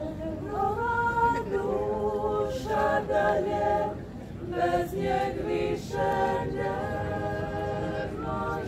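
A women's vocal ensemble of about ten singers singing a cappella in several-part harmony, holding long notes with a couple of short breaks near the middle.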